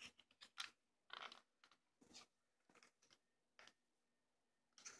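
Faint handling noise: short, irregular scrapes and rustles, about eight in all, as the phone and a BB pistol are moved about in the hand.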